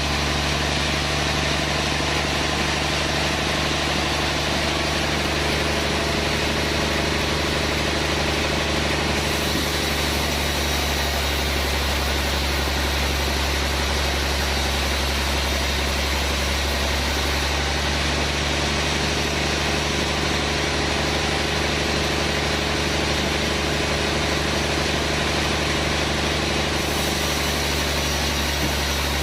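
Sawmill machinery running steadily: a constant, unchanging low hum with a steady pitch.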